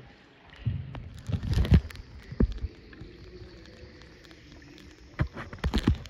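A small paddled tour boat moving on a cave river, with irregular knocks and thumps in two clusters, about a second in and again near the end, over a faint steady hiss.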